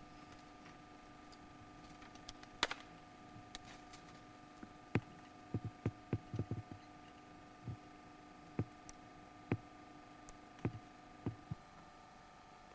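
Irregular sharp clicks and knocks, a dozen or so, with a quick run of them about six seconds in, over a steady low hum.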